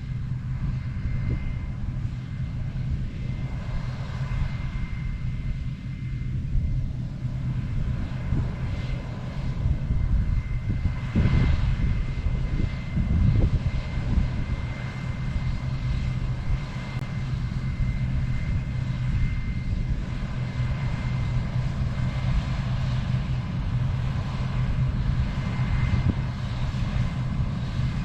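Claas Lexion 420 combine harvester running steadily during wheat harvest: a deep engine drone with a thin steady whine above it, swelling louder twice near the middle.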